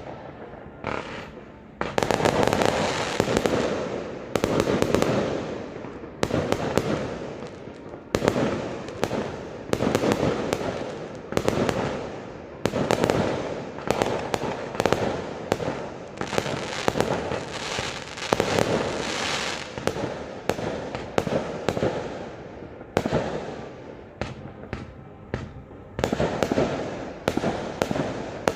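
Fireworks going off in quick succession: sharp bangs every second or two, each fading away, with clusters of fast crackling cracks between them.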